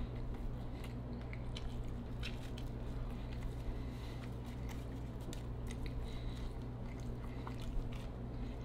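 A person chewing and biting a slice of cheesy deep-dish pizza, with small mouth clicks scattered through, over a steady low hum.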